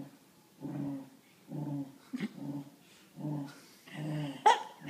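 Wheaten terrier growling in a run of short rumbles, a little more than one a second, in play while being teased. About four and a half seconds in comes one short, sharp, loud sound.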